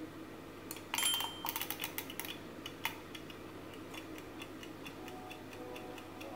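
Mechanical egg kitchen timer being wound by hand: a quick run of sharp clicks about a second in as the dial is turned, then its clockwork ticking steadily, a few ticks a second.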